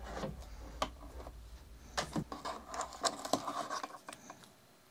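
Hands handling a plastic PTFE filament tube and cable at the back of a 3D printer: rubbing and scraping with scattered sharp plastic clicks, the clearest about 1, 2 and 3 seconds in, dying away near the end.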